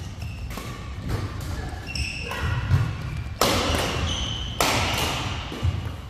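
Badminton doubles rally: rackets striking the shuttlecock in a quick series of sharp smacks, the two loudest about three and a half and four and a half seconds in, with footfalls thudding and shoes squeaking on the court.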